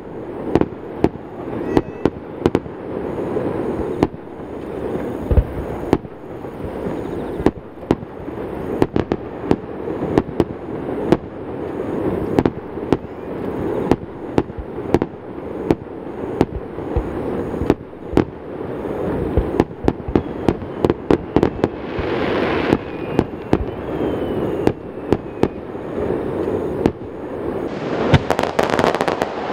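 A fireworks display: aerial shells bursting one after another in a rapid, uneven stream of sharp bangs, with a rolling rumble between them as the booms echo off the surrounding mountains. Near the end it turns into a dense, continuous crackle.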